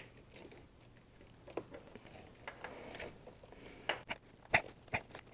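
Scattered light clicks and knocks, bunched together and loudest near the end, over a faint rustle. A brake booster vacuum pump is being fished down between hoses and lines and worked into its seat on the engine by hand.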